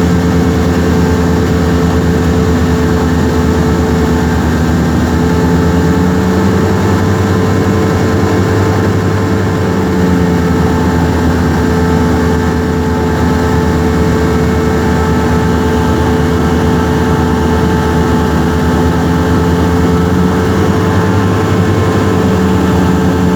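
Cessna 172R's four-cylinder Lycoming engine and propeller droning steadily in cruise on approach, heard inside the cockpit, with slight shifts in pitch about six seconds in and again near the end.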